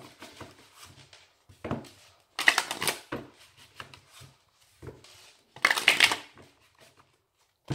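A deck of oracle cards being shuffled by hand, the cards riffling and slapping together in several short bursts with pauses between.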